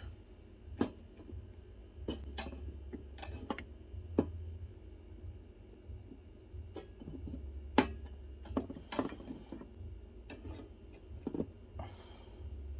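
Scattered light clicks and knocks of hard objects being handled and set down, over a steady low hum, with a short hiss near the end.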